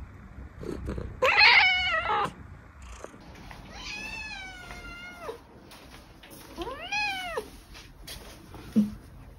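Scottish fold cat meowing three times. The first meow is short and the loudest, the second is drawn out for about two seconds, and the third is short and rises then falls in pitch.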